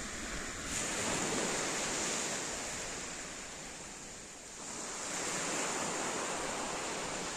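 Small sea waves breaking and washing up a pebble beach. The surf noise swells about a second in, eases off, and swells again past the middle.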